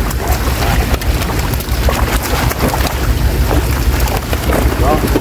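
Many netted fish thrashing and splashing in shallow water, a dense crackle of splashes, with wind rumbling on the microphone.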